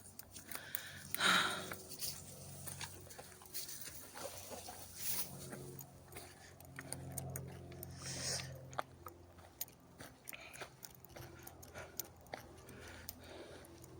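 Footsteps crunching and rustling through dry leaves, twigs and undergrowth while climbing down into a wooded ditch, with scattered snaps and crackles and a louder brush of vegetation about a second in. A low hum swells and fades in the middle.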